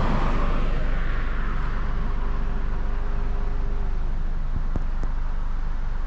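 Low rumble of a car rolling slowly, with a passing car swishing by at the start and fading away.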